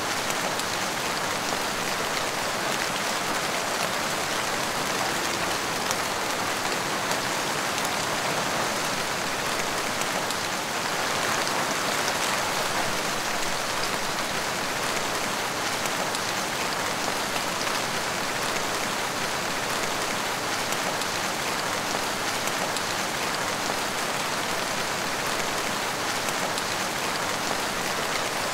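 Heavy rain falling steadily: a dense, even hiss of drops that never lets up.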